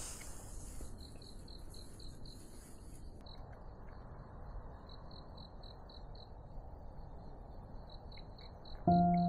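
A cricket chirping at about four high-pitched chirps a second, pausing now and then, over faint low background noise. Piano music comes in near the end.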